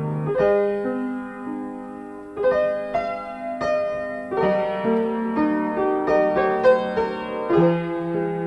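Piano playing a slow instrumental intro, chords and notes struck every second or so and left to ring.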